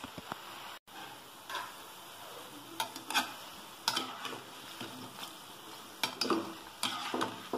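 Masala-coated peanuts deep-frying in hot oil in a steel kadai, sizzling steadily. A perforated steel slotted spoon stirs them, clinking and scraping against the pan about ten times. The sound breaks off for a moment about a second in.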